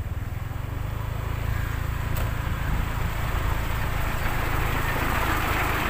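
Heavy diesel truck engine running with a low, fast-pulsing rumble, the noise growing a little louder toward the end.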